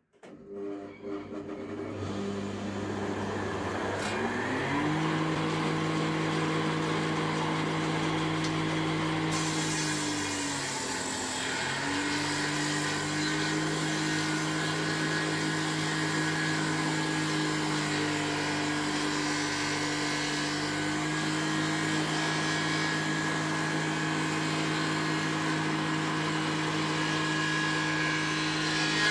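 Electric table saw starting up and running: the motor hum builds over the first couple of seconds and rises to full speed a few seconds in. About ten seconds in its pitch sags and recovers, as the blade takes the load of a cut, then it runs steadily.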